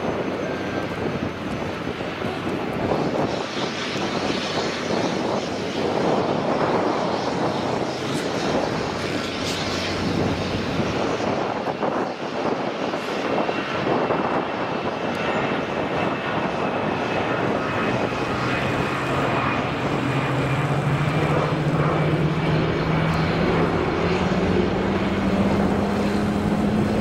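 Airbus A330-300 jet airliner on pushback: a steady rush of engine noise. About two-thirds of the way in, a low hum starts and rises slowly in pitch, as an engine spools up.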